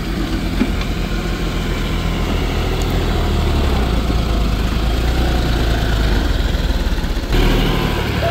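John Deere 5310 tractor's three-cylinder diesel engine running steadily under load as the tractor pushes and scoops soil with its front loader. The engine grows louder over the first couple of seconds, and the sound changes abruptly near the end.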